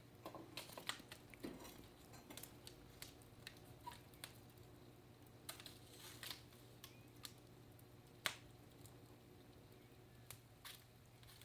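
Near silence with faint, irregular small clicks and taps, one a little louder about eight seconds in.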